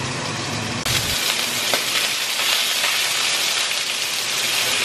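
Skin-on chicken pieces sizzling in a pan in their own rendered fat, with no oil added. About a second in the pan lid comes off and the sizzle turns suddenly louder and brighter, a steady hiss.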